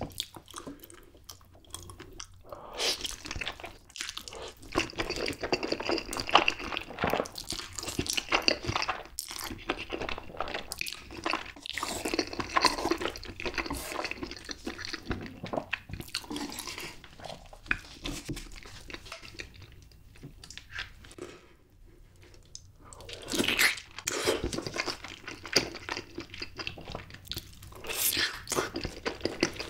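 Close-miked eating sounds: wet, irregular chewing and smacking of saucy stir-fried spicy ramen noodles, with chopsticks working the noodles, and near the end a bite into a whole block of canned Spam.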